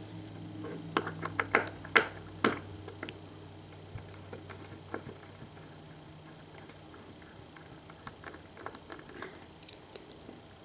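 Scattered small metal clicks and taps from a lock cylinder and its parts being handled, sharpest and most frequent in the first couple of seconds and again near the end, over a faint steady hum that fades out about halfway through.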